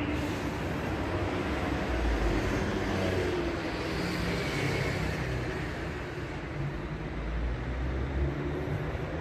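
City street traffic: a steady rumble of car engines and tyres, swelling as vehicles pass about two seconds in and again around seven seconds.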